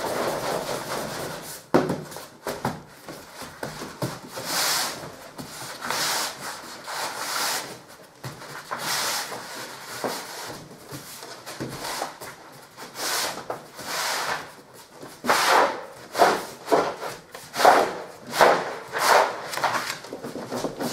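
A roll of lining paper being rolled back on itself across a wooden pasting table, a series of papery rubbing swishes as the hands press and roll it, which takes the curl out of the paper. The strokes grow louder and come more regularly, about one every second, in the last few seconds.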